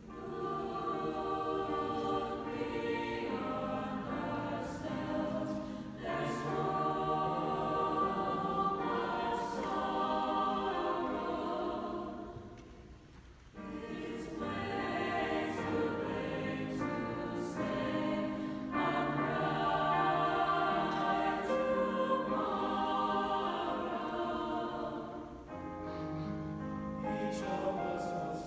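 Mixed choir singing in parts with piano accompaniment; the singing drops away briefly about thirteen seconds in, then comes back in full.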